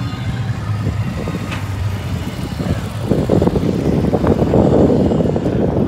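Helicopters flying past in formation: a steady low engine hum, then the rotor chop grows much louder about three seconds in as they pass low overhead.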